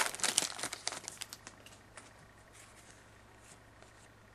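Foil wrapper of a 2011-12 Elite hockey card pack crinkling as the cards are pulled out, dying away after about a second and a half into faint rustles of the cards being slid apart.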